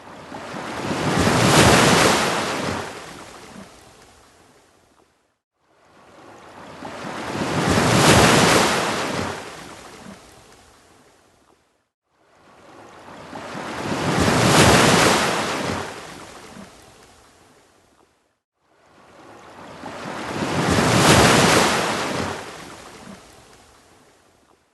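Ocean waves on a beach: four waves, one about every six and a half seconds, each swelling up to a breaking rush and then washing away, with a brief hush before the next.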